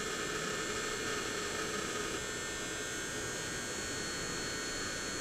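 Heat gun running steadily, a constant blowing hiss with a faint hum, heating a surface-mount regulator chip on a circuit board to melt its solder for removal.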